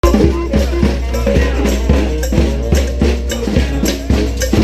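Street brass band playing, horns holding and changing notes over drums that hit about twice a second.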